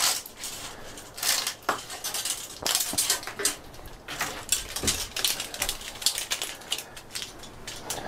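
Handling noise of a stripped double-armored fiber optic cable: irregular rustling, scraping and clicking as the cable is pulled and coiled and the fiber is drawn out of its jacket and armor.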